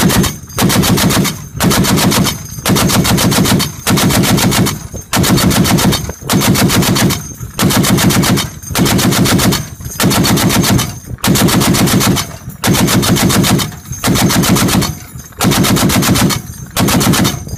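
M2 Browning .50-calibre heavy machine gun firing a long string of short bursts, each of several rapid rounds, with brief pauses of under a second between bursts.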